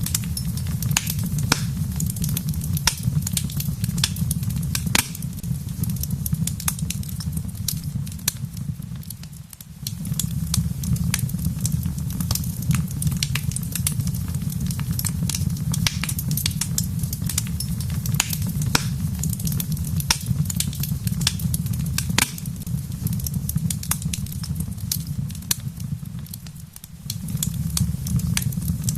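Wood fire crackling, with frequent sharp pops and snaps over a steady low rumble. The sound dips briefly and comes back twice, about nine seconds in and again near the end.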